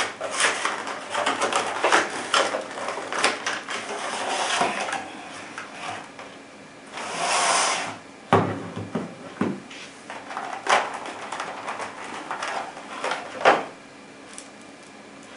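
Clear plastic clamshell packaging crackling, clicking and rustling as it is pried open and handled, with a longer scraping rustle about seven seconds in and a few sharp clicks later on.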